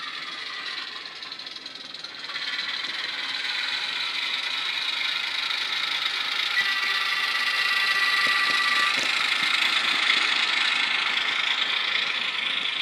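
Model locomotive sound decoder playing a rough, mechanical-sounding diesel shunter engine (ESU Kö I sound file) through the small speaker in a Hornby Ruston & Hornsby 88DS, growing louder as the loco approaches. A two-tone horn sounds for about two seconds a little past halfway.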